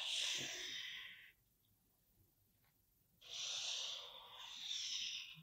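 Black marker pen drawn across paper in two strokes, a soft scratchy hiss: the first stroke stops about a second in, the second starts about three seconds in.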